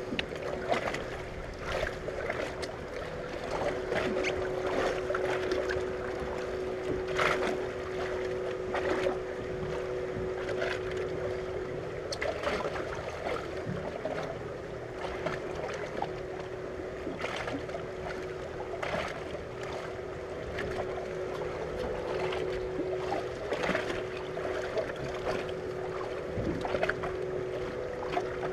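A boat's motor running with a steady two-tone hum, over wind and water lapping against the hull, with scattered small knocks and splashes.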